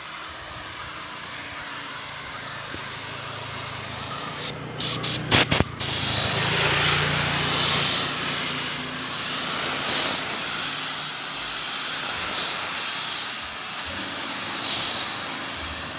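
Gravity-feed spray gun hissing as compressed air sprays white paint onto a bus's side panel. About five seconds in the hiss breaks off a few times with clicks, then comes back louder, swelling and fading about every two and a half seconds.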